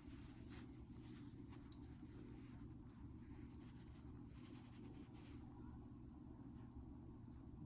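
Faint, irregular scratchy rustling and nibbling from a pet hamster handling its food, over a steady low hum.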